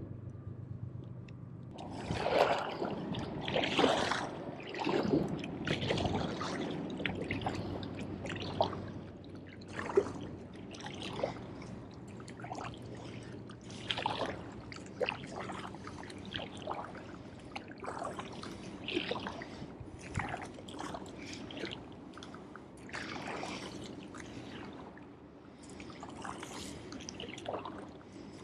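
Aqua-Bound kayak paddle stroking through a floating mat of duckweed: blades dipping and water trickling and dripping off them, a splash every second or so.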